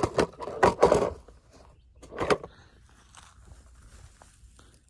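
Hands working on a round hay bale: a red plastic tub is shifted and a toy car set down in the straw, giving a quick cluster of crackles and knocks in the first second, one more crackle about two seconds in, then faint rustling.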